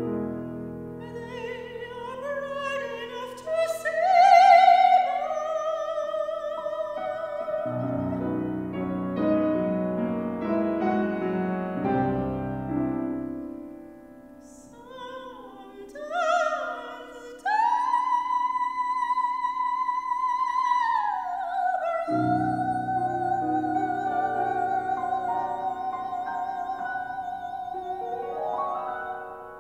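Operatic soprano singing with wide vibrato, accompanied by a Steinway grand piano. Past the middle she holds a long high note, then falls to a lower long note that ends shortly before the close, leaving the piano.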